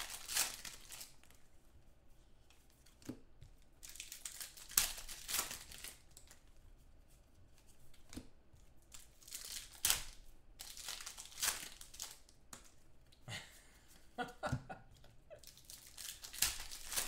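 Foil trading-card pack wrappers being torn open and crinkled by hand, with cards handled in between, in sharp bursts of tearing a few seconds apart.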